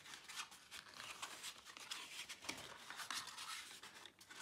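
Faint rustling, scraping and creasing of thin cardboard as hands fold and press the flaps of a glue-free folding box, a run of many quick small scratches and taps.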